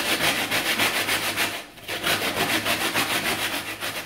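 Hard, stale bread being grated by hand on the fine side of a metal box grater: quick, even scraping strokes, about five a second, with a short pause a little under two seconds in.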